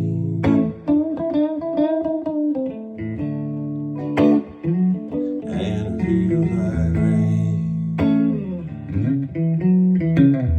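Instrumental guitar music between sung lines: picked guitar notes with sharp attacks over held low bass notes.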